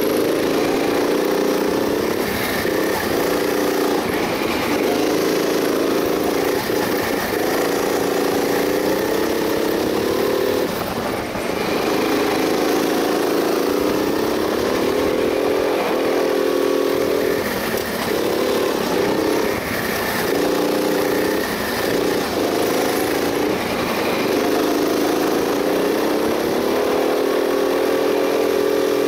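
Go-kart engine heard from on board, rising in pitch through each straight and dropping off sharply as the throttle comes off for the corners, over and over through the lap.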